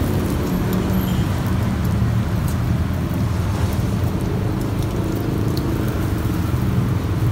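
Steady road-traffic noise: a continuous low rumble of passing vehicles.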